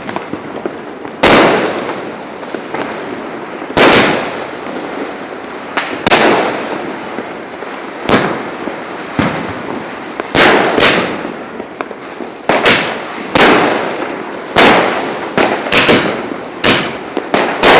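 Firecrackers bursting one after another with sharp bangs, each trailing off in an echoing decay. The bangs come every second or two at first and crowd closer together in the second half.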